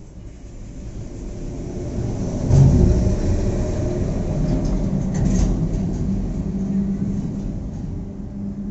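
A motor vehicle's engine running close by: a low rumble that grows louder over the first few seconds, peaks, and then slowly fades, with a steady hum under it in the second half.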